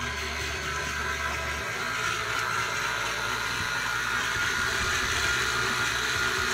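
KitchenAid Artisan stand mixer running steadily, its beater creaming butter, sugar and yogurt in the steel bowl. A steady motor whir, its higher tone growing stronger about two seconds in.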